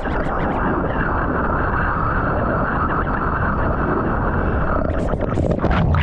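Seawater rushing and churning over a surfing POV camera held at the waterline, a steady muffled rush with the camera partly under the surface. Near the end come sharp crackling splashes as the wave washes over the camera and it goes under.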